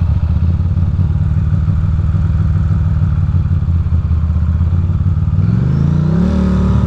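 Ducati Monster's V-twin engine idling with a low, pulsing beat. About five and a half seconds in, the revs rise as the bike pulls ahead, then settle.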